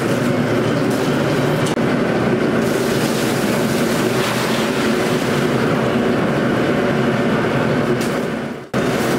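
Steady, loud drone of ice-plant machinery running, with a constant hum, and water hissing and splashing from a hose and from an ice can as it is tipped out. Near the end the sound fades and drops out for a moment, then comes straight back.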